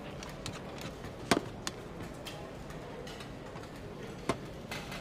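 Quiet canteen room tone with scattered sharp clicks and knocks, like utensils and objects set down on tables. The loudest knock comes about a second and a half in, and another comes about four seconds in.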